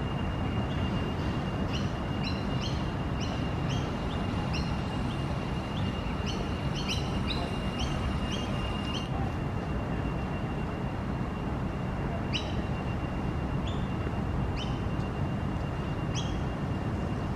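Bird chirping in short, high notes, quickly repeated in the first half and only every second or two later, over a steady thin high tone and a constant low background rumble.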